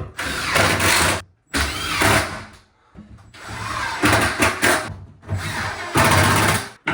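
Cordless drill with a Robertson bit driving screws through the cabinet into the wall studs: four runs of the drill, each a second or so long, with short pauses between.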